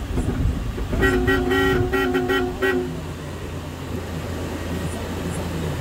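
A vehicle horn sounded in a quick series of about six short toots, stopping a little under three seconds in, over the steady low hum of an idling van engine.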